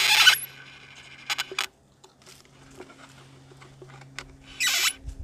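Plastic water bottle crackling and scraping against a hand-held bottle cutter as the hands work a cut tab free: a short scratchy burst at the start and another near the end, with a few small clicks between.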